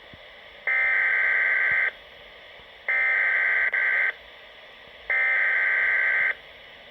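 Three bursts of SAME (EAS) digital header data on a weather radio broadcast, each just over a second long and about a second apart. They are the coded header that triggers receivers for an alert, here a severe thunderstorm watch.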